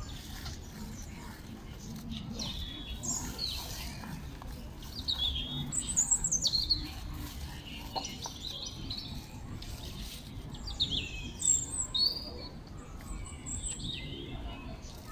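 Birds chirping in the trees: many short, high calls that fall in pitch, coming again and again, loudest around five to seven seconds in and again near twelve seconds.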